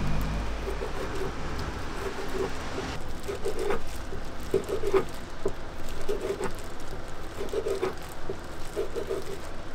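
Long knife slicing through sundae (Korean blood sausage) on a wooden cutting board: a steady run of soft, squishy cuts, about one or two a second, each ending in a light knock of the blade on the board.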